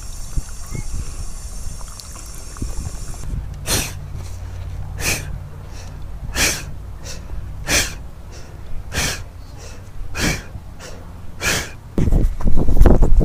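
A person breathing heavily in sharp, breathy strokes, about one every second and a quarter, starting a few seconds in, over a low steady hum. Near the end a louder rustling noise sets in.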